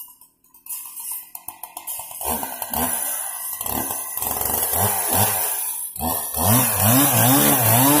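Two-stroke chainsaw running and being revved up and down repeatedly, its pitch rising and falling with each blip of the throttle, with a brief drop about six seconds in.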